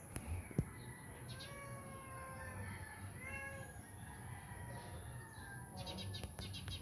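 A domestic cat meowing several times, short pitched meows close together, with a single sharp knock about half a second in.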